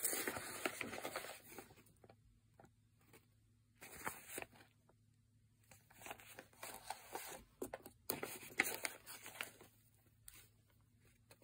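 Paper rustling and crinkling in irregular bursts as a paper sewing-pattern envelope is handled and turned over.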